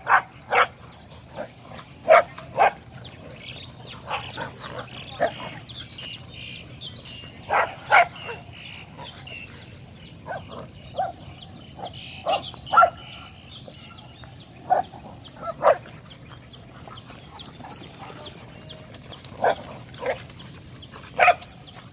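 Dogs barking in play, short single barks and quick pairs scattered at irregular intervals while they wrestle and chase.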